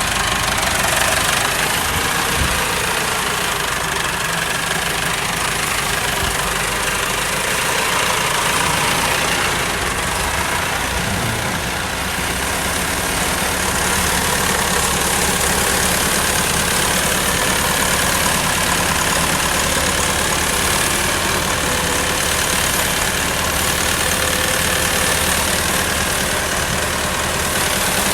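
A motor or engine running steadily at an even level.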